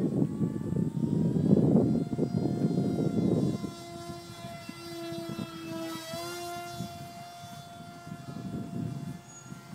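Small electric RC flying wing's 2800KV brushless outrunner motor and pusher propeller whining steadily overhead, its pitch wavering about six seconds in. For the first three and a half seconds a loud low rumbling noise covers it.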